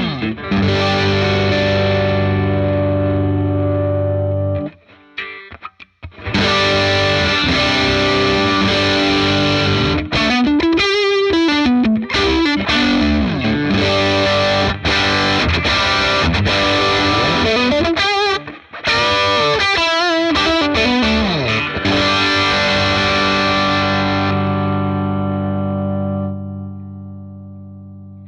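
Electric guitar played through a Dr. Z Maz 38 Senior 2x12 tube combo with reverb, in an overdriven tone: sustained chords and bent notes, with a short break about five seconds in. Near the end a last chord is left ringing and fading away.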